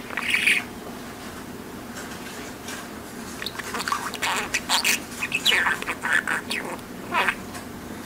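Pet budgerigar chattering in its warbled mimic talk, which the owner captions as "they want to do this, if they could advance belief": a short burst at the start, a pause of a few seconds, then a run of quick squeaky syllables with sliding pitch.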